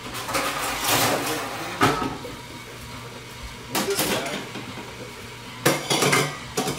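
Metal pans clattering and clanking as they are handled and set down, with a rummaging clatter at first and sharp knocks about two, four and six seconds in.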